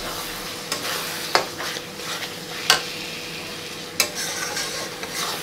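Onions and spice paste sizzling in oil in an aluminium kadai while a metal spatula stirs them, with a few sharp knocks and scrapes of the spatula against the pan about every second and a half. The masala is being bhuna-fried.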